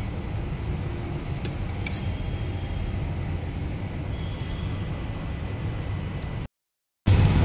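Steady low rumble of roadside traffic, with a couple of faint clicks about one and a half and two seconds in. The sound cuts out completely for about half a second near the end.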